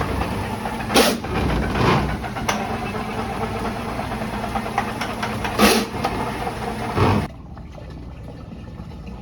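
Drain-cleaning jetter running steadily while jetting out a clogged drain line, with a few sharp knocks. The sound drops away abruptly about seven seconds in.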